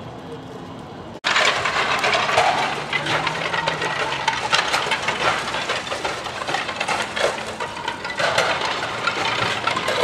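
Low steady background hum, then, starting abruptly about a second in, loud continuous clattering and cracking made up of many sharp knocks: clay roof tiles being broken off a roof and tumbling down it.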